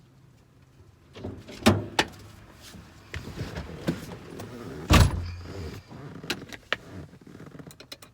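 Hand tools being handled and fitted to a small bolt: a run of metallic clicks, knocks and clatter, with one heavy thump about five seconds in.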